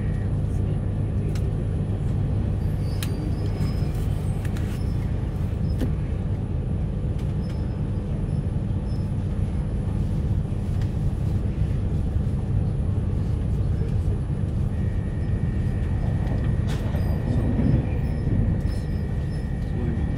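Steady rumble and low hum inside a carriage of Queensland Rail's electric Rockhampton Tilt Train running along the track. A faint steady high tone joins about three-quarters of the way in.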